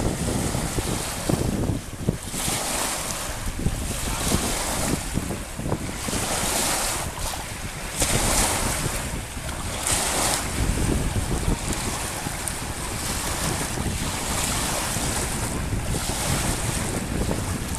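Small waves breaking and washing up a pebble shore, a hissing surge every two seconds or so, with wind buffeting the microphone as a steady low rumble.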